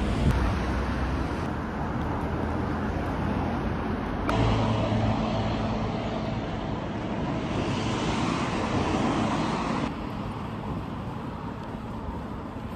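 Street ambience with traffic noise, made of several short clips spliced together, so the background changes abruptly about a second in, again near four seconds and once more near ten seconds.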